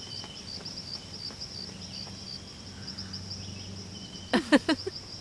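Crickets chirping, a steady high pulsing trill over a faint low hum. A brief voice cuts in near the end.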